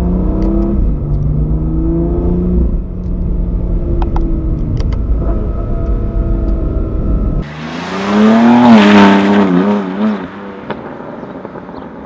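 BMW M2 Competition's 3.0-litre twin-turbo inline-six pulling under acceleration, heard inside the cabin, its note rising in pitch as the revs climb. About seven and a half seconds in it switches to the car heard from outside, accelerating hard away with a loud, wavering exhaust note that then fades.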